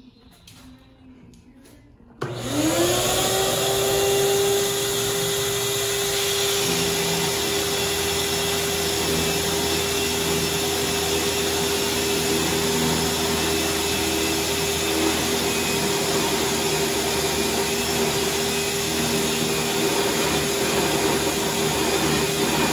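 An electric orbital sander hooked to a dust-extraction vacuum hose switches on about two seconds in, its whine rising quickly to a steady pitch over a rush of sucked air, and runs steadily while sanding a wooden window sash smooth.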